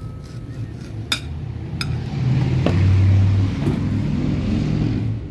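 A low rumble that swells from about two seconds in and fades near the end, with two sharp clicks of a knife against a ceramic plate about one and two seconds in.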